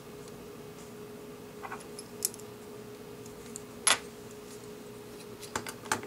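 Small clicks and taps from a CD laser pickup mechanism being handled and turned over in the hands. There is a single sharp click about four seconds in and a quick cluster of clicks near the end, over a steady hum.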